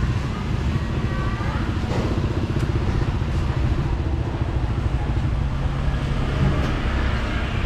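Motorcycle engine running close by: a steady low drone with an even engine hum.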